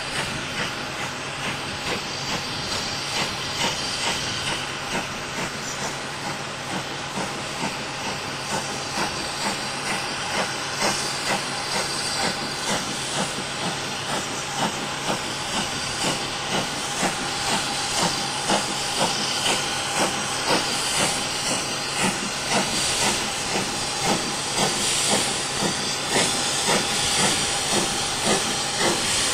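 Steam locomotive drifting in slowly with a steady hiss of steam and a regular beat roughly once a second, growing louder as it approaches.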